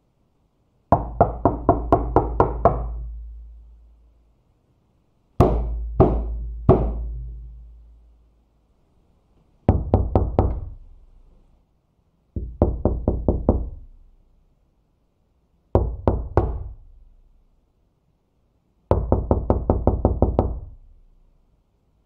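Knocking on a door in six separate bouts, a few seconds apart. Some bouts are quick runs of five to nine knocks and others are three slow, heavy knocks, each followed by a short, deep ring from the door.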